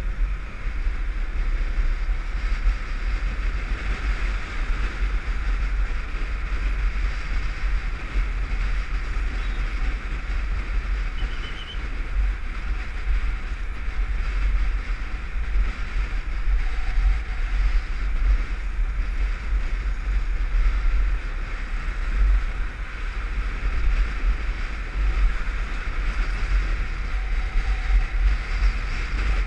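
Wind rushing and buffeting over a helmet-mounted camera on a moving motorcycle: a steady rush with a heavy low rumble, road noise mixed in.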